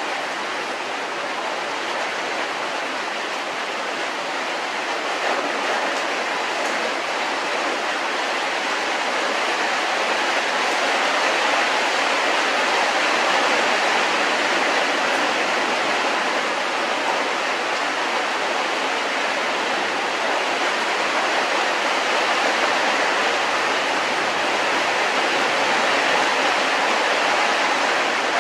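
A steady, even rushing noise with no distinct events, like running water or white noise, slightly louder in the second half.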